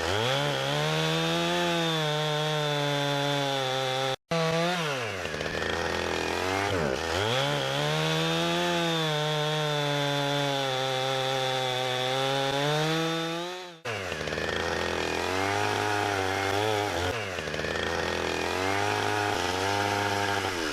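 Chainsaw running at high speed while cutting, with the engine note repeatedly sagging and recovering as the chain loads up in the wood: trimming defects off a log. The sound cuts out briefly twice, about four seconds in and again near fourteen seconds.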